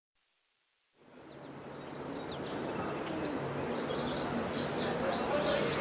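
About a second of silence, then outdoor background noise fades in with many birds chirping: short, high, falling chirps that grow busier toward the end.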